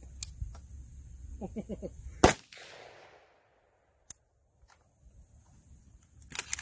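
A single gunshot about two seconds in, with a short echoing tail, amid lighter metallic handling clicks.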